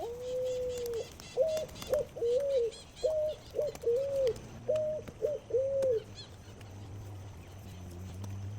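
A bird calling in low, pure whistled notes: one long note, then a run of short arched notes that stops about six seconds in. Fainter high chirps sound in the background, and a low hum builds near the end.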